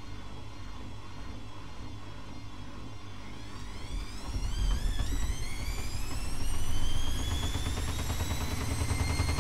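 Bauknecht WAK 6950 washing machine's motor and drum speeding up into a spin: about four seconds in, a whine starts rising in pitch and levels off near the end, over a low rumble that grows louder.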